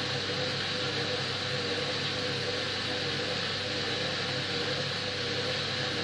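Hoover front-loading washing machine running its delicate cycle: a steady motor hum with a slightly wavering mid tone under a constant even hiss.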